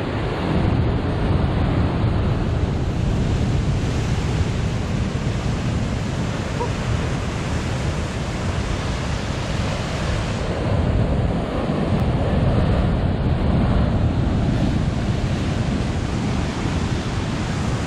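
Heavy sea surf breaking and washing over shore rocks in a steady roar, swelling louder for a few seconds past the middle.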